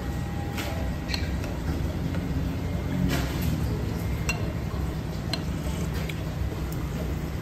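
Ceramic soup spoon scooping broth from a porcelain bowl, giving a few light clinks against the bowl, over a steady low background hum.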